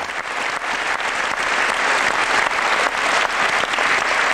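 Crowd applauding: many hands clapping together, swelling over the first couple of seconds and then holding steady.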